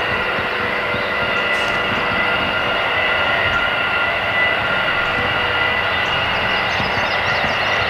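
Natural gas compressor station: a loud, steady roar of rushing noise with several steady whining tones held through it.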